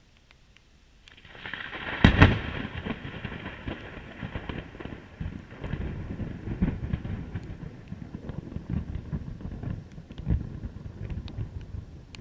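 Close thunder: a tearing build-up about a second in breaks into a sharp, loud crack, then rolls on as a long, uneven rumble.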